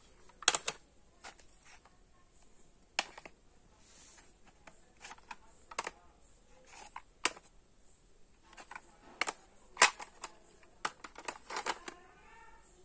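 Plastic audio cassette cases clacking as they are picked up and set down on a stack: a dozen or so sharp, irregular clicks.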